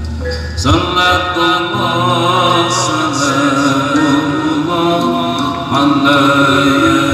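Loud music played through a large carnival sound system: a held, wavering chant-like vocal melody over sustained tones comes in about a second in.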